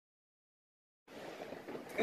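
Silence for about a second, then a faint, even hiss of background noise begins, with a light click near the end.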